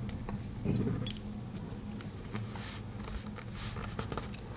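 Light clicks and taps of a Victorinox Swiss Army knife being handled as its small scissors are opened out, over a faint steady hum.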